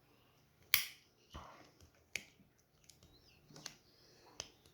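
Victorinox Swiss Army knife blade being opened and closed to work fresh oil into its pivot, the backspring snapping it home with sharp clicks. The loudest click comes a little under a second in, followed by several softer ones.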